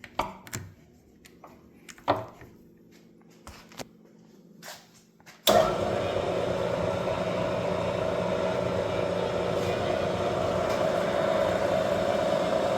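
A few clicks and clunks as a Bridgeport Series 1 variable-speed milling machine is shifted into back gear, then about five seconds in its 1.5 hp three-phase motor switches on and the spindle runs steadily in back gear.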